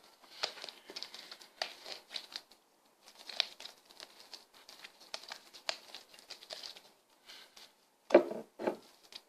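Homemade slime of glue, jelly and borax being squeezed and worked by hand, making irregular sticky crackles and clicks, with two louder sounds about eight seconds in.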